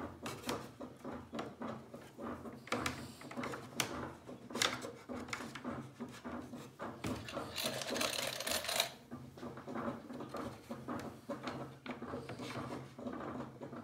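Small clicks, taps and rattles of hands fastening a steamed wooden rib to the stringers of a wooden boat frame, with a longer scratchy scraping stretch a little past the middle. A steady low hum runs underneath.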